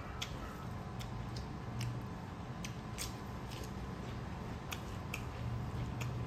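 Eating sounds: mouths chewing chicken curry and rice eaten by hand, with sharp, wet smacking clicks scattered irregularly, a dozen or so, over a steady low hum.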